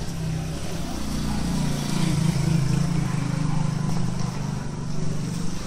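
An engine running with a steady low hum that grows louder about a second in and eases off toward the end, like a motor vehicle passing.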